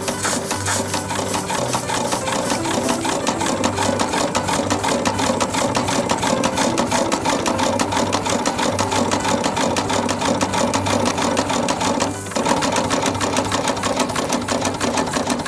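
Double-cylinder piston-valve steam engine running fast, a rapid, even clatter of exhaust beats and valve gear over a steady hiss of leaking steam. It dips briefly about twelve seconds in.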